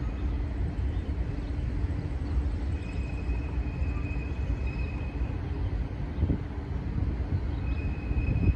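Distant Norfolk Southern intermodal freight train giving a steady low rumble as it climbs the grade.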